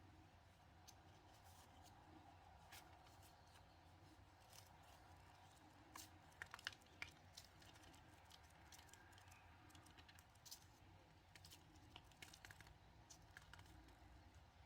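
Faint scattered clicks and light taps of stationery being handled, with a quick cluster of sharper clicks about six to seven seconds in, over a quiet room hum.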